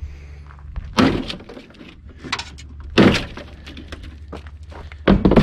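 Pry bar prying and striking at an RV's power cord compartment, with a handful of sharp cracks and knocks as the compartment breaks loose. The loudest strikes come about a second in, about three seconds in and near the end.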